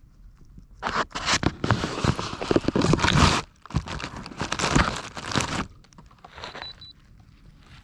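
Irregular crinkling and rustling handling noise close to the microphone, in uneven bursts for about five seconds, then dying down.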